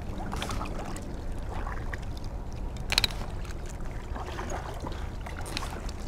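Kayak hull moving through thick floating moss, water swishing and sloshing against it, over a steady low rumble of wind on the microphone. A few light clicks, with one sharp knock about three seconds in.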